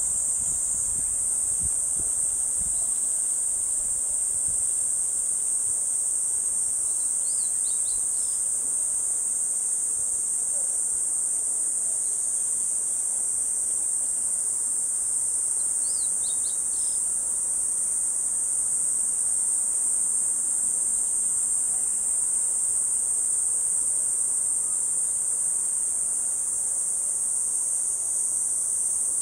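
Steady, unbroken high-pitched drone of a chorus of summer insects, with brief bird chirps twice, about seven and sixteen seconds in.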